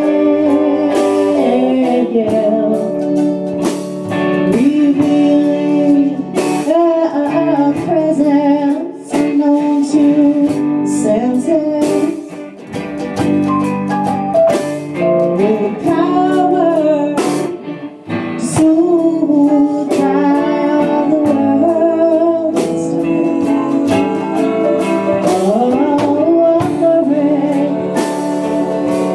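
A woman singing a song, accompanied by her own small plucked stringed instrument and a second guitarist.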